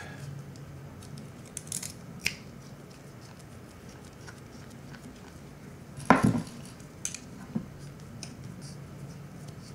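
Light metallic clicks and ticks from handling a 1/4-inch TRS plug and small hand tools during assembly, with one louder knock about six seconds in.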